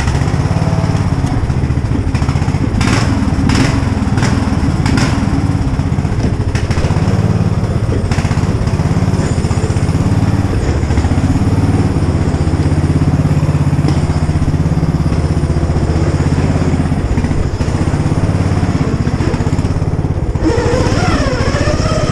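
Engine of an engine-swapped Poulan riding lawn mower running steadily as it warms up after a choked cold start, with a few short knocks about three to five seconds in.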